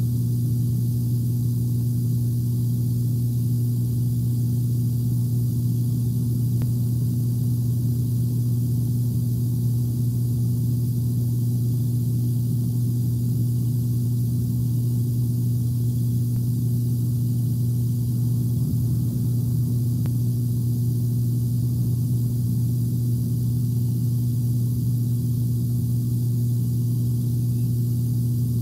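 Steady low electrical hum in the nest camera's audio, one unchanging pitch with a second tone an octave above it. No eagle calls or wing flaps stand out over it.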